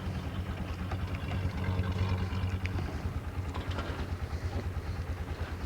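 An ATV (quad) engine running, a steady low drone with a fast even pulse, a little louder around the middle.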